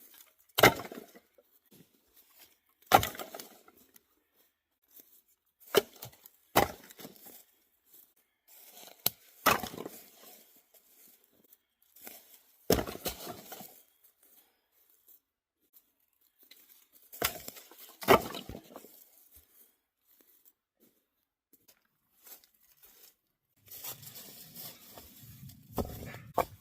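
Firewood being broken or chopped for a campfire: about eight sharp woody cracks a few seconds apart, with rustling near the end.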